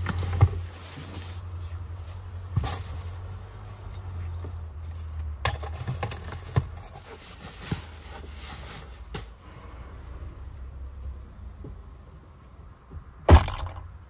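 Low rumble of gusting wind, with scattered knocks and clicks and one loud thump near the end.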